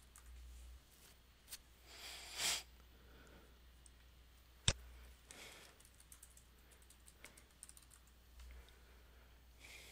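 Faint computer keyboard typing and mouse clicks, with one sharp, loud click about halfway through and a short hiss shortly before it.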